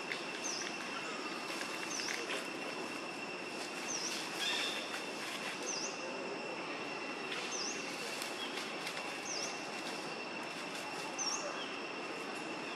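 Steady high-pitched insect drone, with a short high chirp repeating about once a second or so. Beneath it, dry leaves rustle and crackle as a macaque forages through them with its hands.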